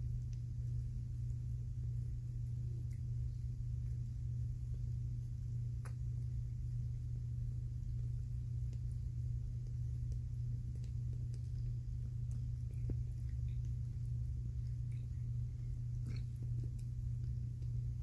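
A steady low hum throughout, with faint soft rustles and small ticks of newborn kittens squirming and pawing at each other on a fleece blanket.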